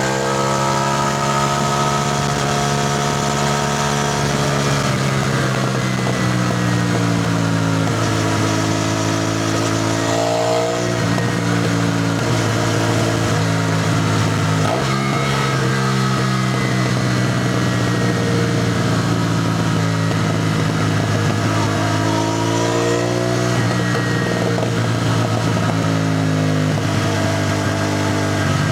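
CFMoto 450NK motorcycle's parallel-twin engine under way, its pitch slowly falling, then climbing, then easing off again as the throttle changes, with short breaks in the note about 11 and 15 seconds in, like gear changes. A steady hiss of wind and road runs underneath.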